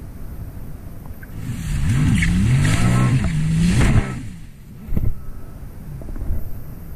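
Sea-Doo Spark Trixx jet ski's three-cylinder engine revving up and down as the throttle is worked, over wind on the microphone and water rushing past the hull. The revs fall away about four seconds in, and a single thump follows.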